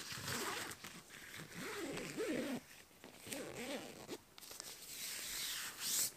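Dome tent's door zipper being pulled shut in three runs with short pauses between them, the last one loudest near the end.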